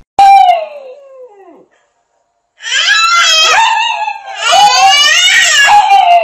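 Pug howling in three long calls: the first falls in pitch, then after a short pause come two long wavering howls.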